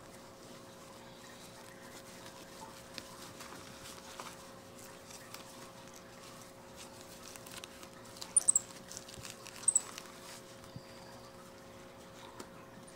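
White-faced capuchin monkey giving a few short, very high-pitched squeaks about eight to ten seconds in, over faint rustling and a low steady hum.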